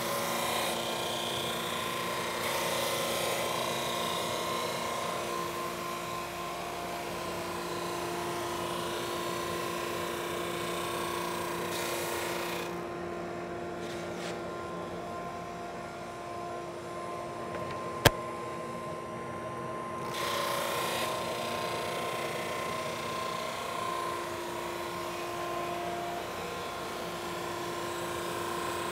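SuperMax 19-38 drum sander running, its conveyor feeding a wooden face frame under the 150-grit sanding drum: a steady machine hum with a sanding hiss that fades for several seconds in the middle. One sharp click partway through is the loudest sound.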